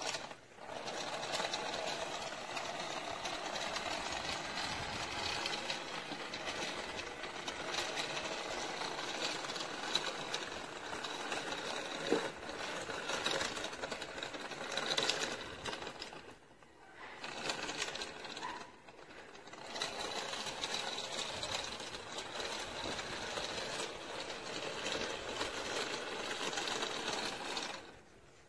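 Small electric gear motors of an Arduino-built robot car whirring steadily as it drives, with two short pauses about two-thirds of the way through. The whirring stops near the end.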